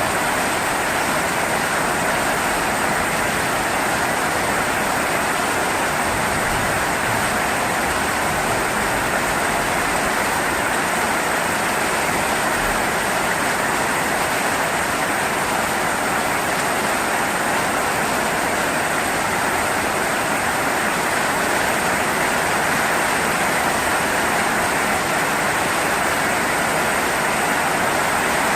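Steady heavy rain falling, an even hiss that holds at one level throughout.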